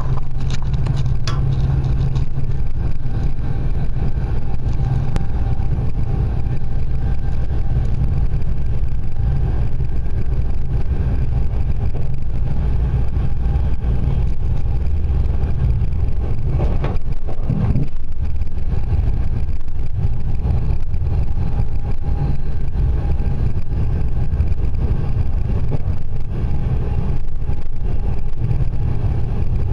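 Steady low rumble of a passenger train running at speed, heard from inside the carriage. There is a short falling sweep about seventeen seconds in.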